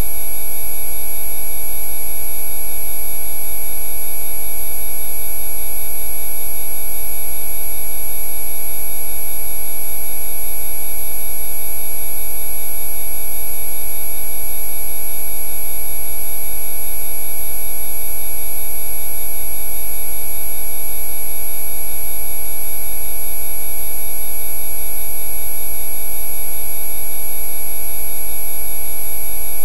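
Steady electronic drone of many pure tones at fixed pitches sounding together, a synthesized Rife-frequency track, with a low hum beneath; it does not change.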